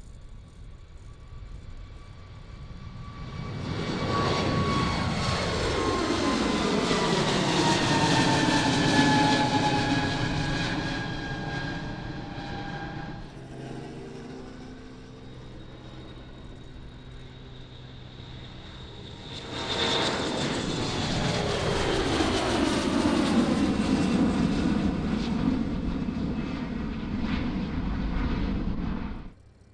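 Two jet airliners passing one after the other, each a loud engine roar with a whine that falls in pitch as it goes by. A quieter steady hum lies between them, and the second pass cuts off abruptly near the end.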